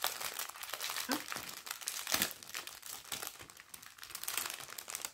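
Plastic packaging of a diamond painting kit crinkling and rustling as it is handled and opened by hand, in a rapid, irregular crackle.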